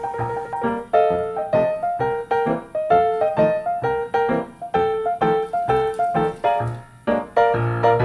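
Background piano music: a melody of quick, evenly paced notes.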